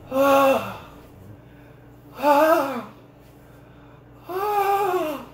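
A person moaning loudly three times in a staged fake orgasm, each moan one long note rising and falling in pitch, with short quiet gaps between.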